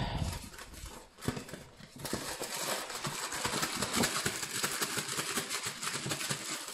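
A cardboard cake-mix box being torn open and the plastic bag of mix inside it crinkling. Scattered taps and scrapes at first, then from about two seconds in a dense, continuous crackling.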